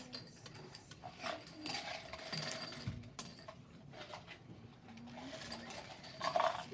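Plastic counting cubes clicking and rattling as they are handled and counted out, with a louder cluster of clicks near the end.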